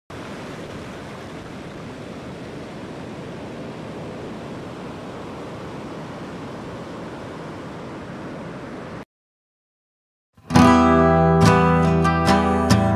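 Steady rushing noise of ocean surf that cuts off suddenly after about nine seconds. After a short silence, a fingerpicked acoustic guitar comes in loudly, playing picked chords.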